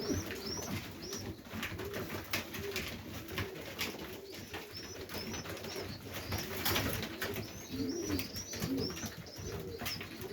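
Highflyer pigeons cooing in a loft, low rolling coos one after another, with clusters of short high chirps and scattered sharp clicks among them.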